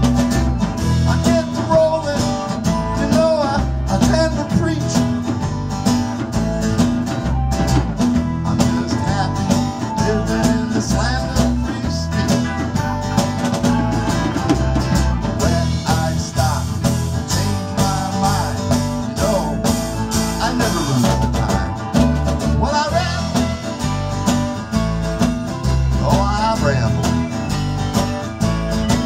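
Live band playing a country-blues rock song: acoustic and electric guitars over a drum kit keeping a steady beat, with bent guitar notes.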